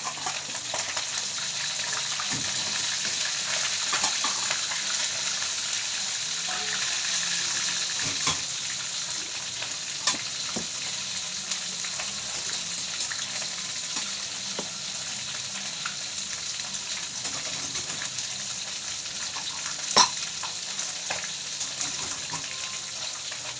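Food sizzling steadily in hot oil in a frying pan, with scattered light clicks of a utensil against the pan and one sharper knock about 20 seconds in.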